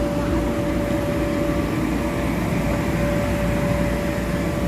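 Steady droning hum of the electric air blowers that keep inflatable bounce houses inflated, a low rumble with one constant tone, unchanging throughout.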